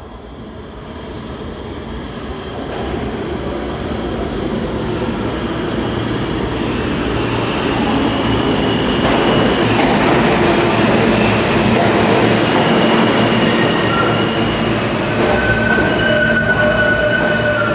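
An R160 subway train approaching and entering the station, its rumble growing steadily louder for about ten seconds, then holding. In the last few seconds, high squealing tones come in as the train slows to stop.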